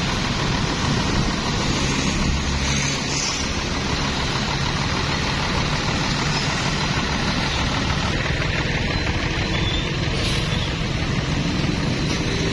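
Heavy vehicle engine running as traffic moves along a wet road, with a steady hiss of tyres and wind.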